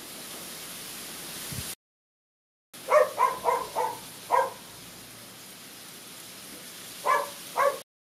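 A dog barking: a quick run of five short barks, then two more near the end, over a steady outdoor hiss. The sound drops out completely for about a second near the start.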